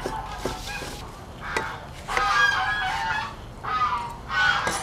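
A few sharp knocks of a cleaver chopping kimchi on a wooden board, then a string of loud honking bird calls from about two seconds in.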